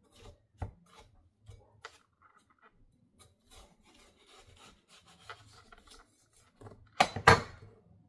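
Knife cutting and scraping through watermelon rind and flesh, with light knocks as the pieces are handled, and two louder knocks about seven seconds in.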